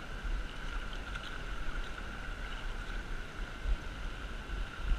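Shallow river water running steadily over a gravel riffle, with a low, uneven rumble of wind on the microphone.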